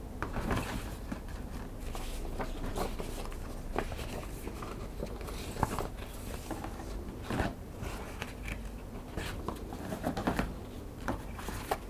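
Paper booklets and leaflets rustling as they are lifted and shuffled, with short irregular rustles and soft taps against the cardboard box.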